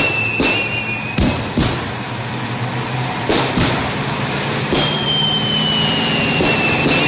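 Exercise blast charges going off among military trucks: about six sharp bangs, over the steady hum of the truck engines. A long high whistle slowly falls in pitch at the start and again in the second half.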